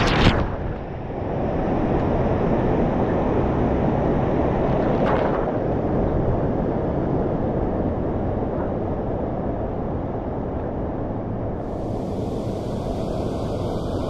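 Fast-moving lazy-river current churning and lapping around a camera riding at the waterline, a steady, muffled rush. A brief splash comes right at the start and a smaller one about five seconds in.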